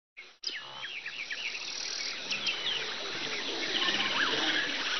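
Woodland ambience: many small birds chirping in short whistled calls over a dense hiss of insects, starting about half a second in and slowly growing louder.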